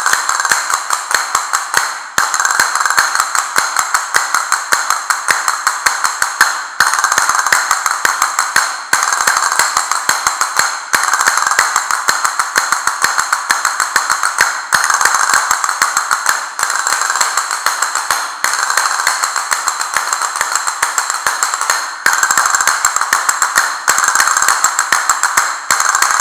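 Two pairs of castanets played together in a practice rhythm of rolls and single strikes: rapid clicking in phrases of two to four seconds, each broken by a brief pause.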